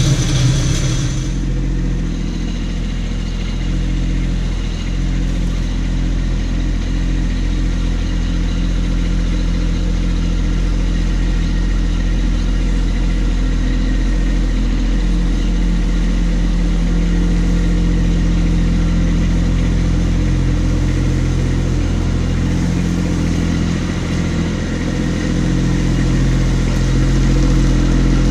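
Kubota B2601 compact tractor's three-cylinder diesel engine running steadily as the tractor creeps forward, growing a little louder near the end as it comes closer. A brief hiss sounds at the very start.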